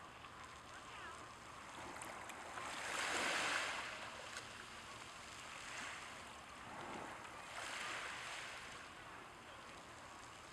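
Small waves washing over a stone and lapping onto a pebble beach. The hiss of the wash swells every two seconds or so, loudest about three seconds in.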